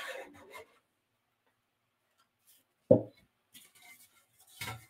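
Metal scoop coater scraping across the Mylar-backed capillary film on a screen for about half a second, pressing the film into wet direct emulsion. Then quiet, broken by a short dull knock about three seconds in and a fainter one near the end.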